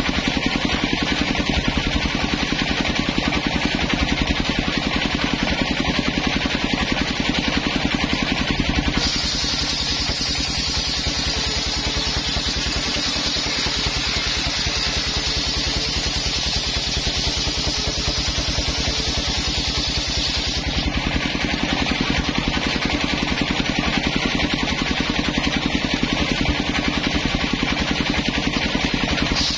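Engine-driven circular saw bench running with a steady, fast engine pulse. From about nine seconds in until about twenty seconds the spinning blade rips lengthwise through a coconut-palm log, adding a loud high hissing rasp, and a new cut starts right at the end.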